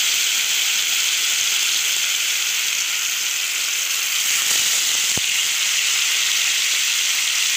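Marinated chicken pieces sizzling in hot oil and butter in an aluminium kadai: a steady frying hiss, with a single sharp click about five seconds in.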